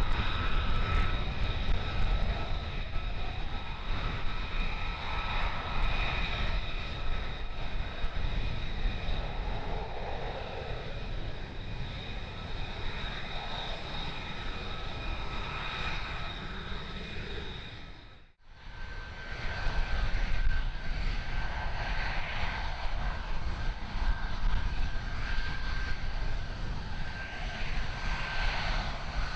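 Lockheed Martin F-35A's single Pratt & Whitney F135 turbofan at taxi power: a steady jet whine of several high tones over a low rumble. About two-thirds through, the sound cuts out abruptly, then returns with a slightly higher whine.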